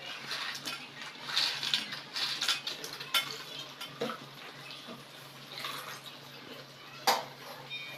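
Metal spatula stirring and scraping vegetables in a metal wok, with a rattle of small fried balls being tipped into the pan early on and a few sharp knocks of the spatula on the pan, the loudest near the end.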